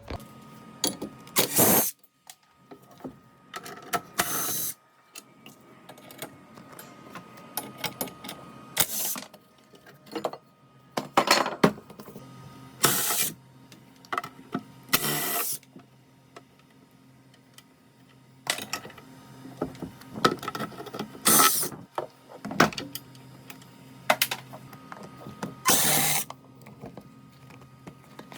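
Short bursts of tool noise, about eight of them, each under a second long and a few seconds apart, with small clicks between, as a two-stroke lawnmower engine is taken apart.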